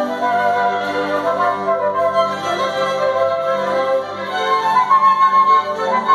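Chamber orchestra playing classical music, two flutes sounding over strings in a run of held, changing notes that grows louder a little past the middle.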